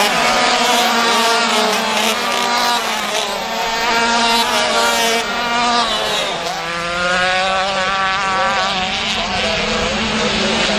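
Several 125 cc two-stroke racing kart engines at high revs as karts pass, several overlapping pitches rising and falling. The sound dips around six seconds in, then new rising and falling pitches come in as more karts come by.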